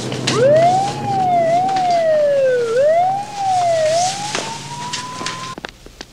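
Police car siren winding up, then wailing up and down in a few slow sweeps before a last slow rise, cut off abruptly near the end.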